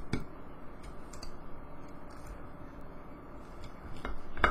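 Knife slicing a sausage on a plate, the blade giving a few scattered light clicks against the plate.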